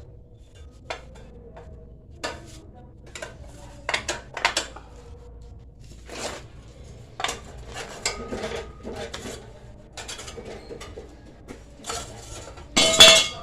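Bent steel bar pieces knocking and clanking together as they are handled, irregular metal knocks with a short ringing after some of them. The loudest clatter comes near the end.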